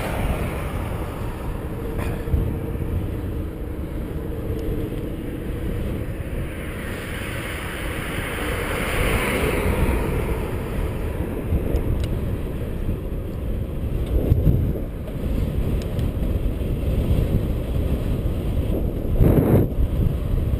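Steady wind rushing over a camera microphone on a moving bicycle, with road noise underneath. About seven to ten seconds in, a car overtakes: its tyre and engine noise swells and then fades. There are two louder low thumps later on.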